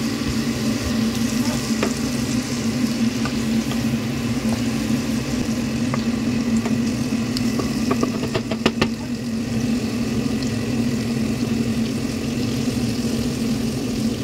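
Bacon and carrots sizzling as they fry in a pan, over a steady low hum, with a quick run of light clicks about eight to nine seconds in.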